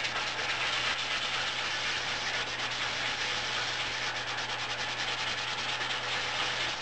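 Wet sandpaper (500 grit) rubbing back and forth over a formed-plastic helmet shell in quick continuous strokes, a steady scratchy hiss as scratches are sanded out.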